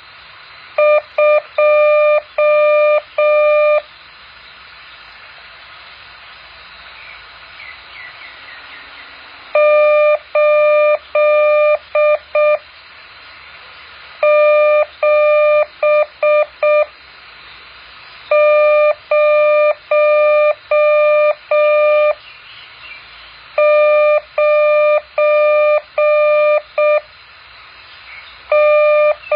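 Morse code practice tones: a single steady beep keyed on and off in dots and dashes, sent in groups of a few seconds each with pauses of a few seconds between groups. A faint hiss fills the pauses.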